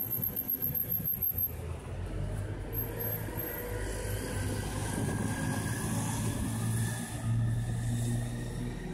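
A motor vehicle running close by, a steady low hum with a faint whine that rises slowly in pitch, loudest near the end.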